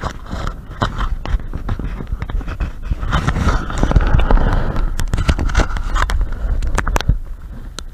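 Footsteps crunching on gravel and broken rubble close to the microphone, an irregular run of sharp clicks over a steady low rumble.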